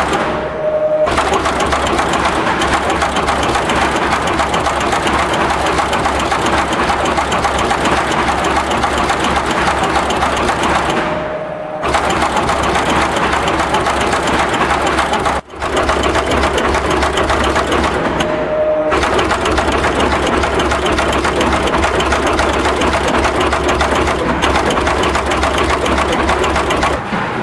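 Automatic radial component insertion machine running, its insertion head cycling fast as it places radial through-hole parts into a PCB: a continuous rapid mechanical clatter. It pauses briefly three times, with a short whine sounding in each pause.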